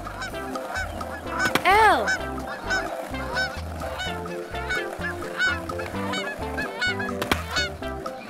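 Cartoon flamingo honking: repeated goose-like bird calls over upbeat children's background music, with one loud call that rises and then falls about a second and a half in. A sharp click comes near the end.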